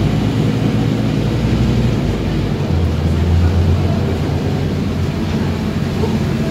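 Scania OmniCity double-decker bus under way, heard from on board: a steady diesel engine drone under road rumble. A little over two and a half seconds in, the engine note rises and grows louder for about a second.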